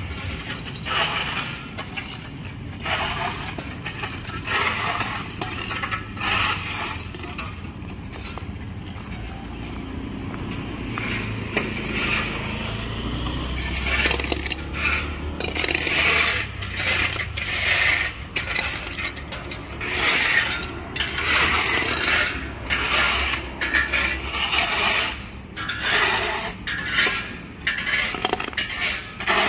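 Steel shovels scraping and scooping gravel and soil off a paved surface: an irregular run of rasping scrapes with metallic clinks, coming more often and louder in the second half. A low rumble sits underneath through the middle.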